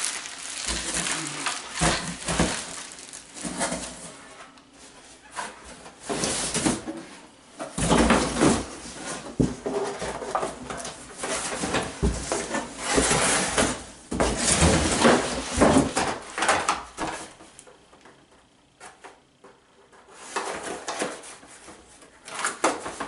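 Plastic wrap and cardboard packing boxes rustling and crinkling as they are handled and rummaged through, with occasional knocks. It is quieter for a few seconds late on.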